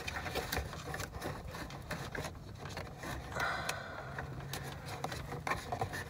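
USB cable being worked through holes in the plastic center-console trim by hand: faint rubbing and scraping with scattered small plastic clicks.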